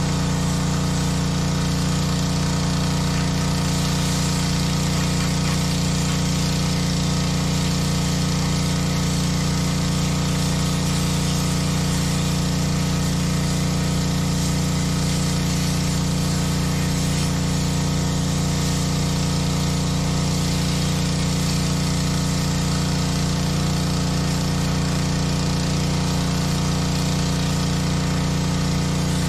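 Honda gas pressure washer's small engine running steadily under load, with the hiss of the high-pressure spray over it.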